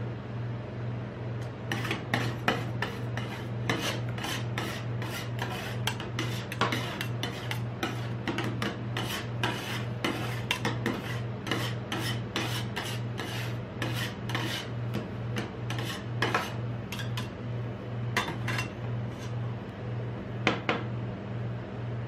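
Two metal spatulas chopping and scraping coconut and ice cream on the steel freezing plate of a rolled-ice-cream pan: quick metal-on-metal clacks and scrapes, stopping just before the end, over a steady low hum.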